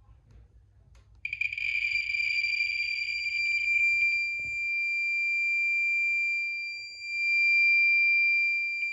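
Handheld radiation detector sounding a steady, high-pitched alarm tone over a uraninite specimen, starting about a second in. The tone is mixed for the first few seconds with a dense crackle of rapid counts, and the crackle returns near the end. The alarm signals a high dose rate from the radioactive mineral.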